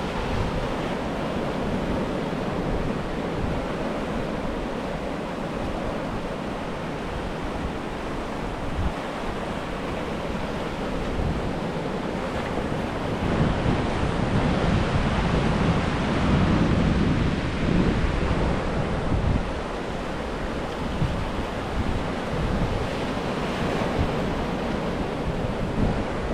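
Ocean surf washing on a beach, with wind buffeting the microphone; it swells louder for several seconds in the middle.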